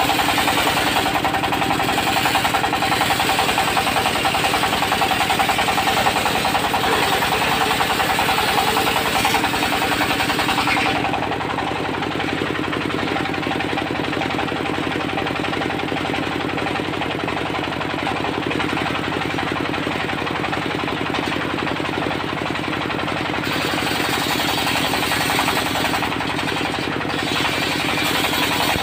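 The diesel engine of a portable circular sawmill runs steadily with a rapid knocking beat. The circular blade's hissing cut through teak drops away about eleven seconds in, leaving mostly the engine. The hiss comes back about two-thirds of the way through.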